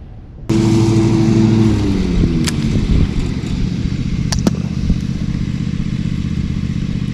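Boat motor starting abruptly and running fast for a moment, then dropping back about a second later to a steady idle. A few sharp clicks sound partway through.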